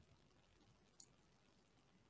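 Near silence: room tone in a pause of the narration, with one faint click about a second in.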